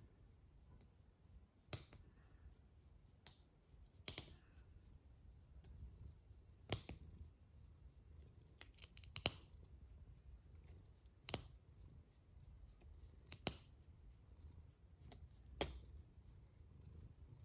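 Cat snoring in its sleep, faint: a short sharp click about every two seconds over a low steady rumble.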